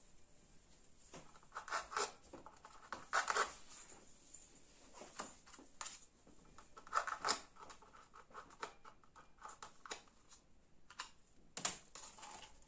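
Rope being pulled through a hole in a small painted cup, with irregular scraping and rustling and light clicks as the cup is handled.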